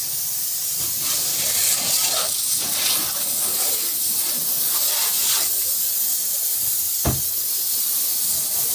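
Water from a hand-held garden hose spraying and splashing on the car's door jamb and body panels, a steady hiss that swells and eases as the stream moves. A single sharp knock about seven seconds in.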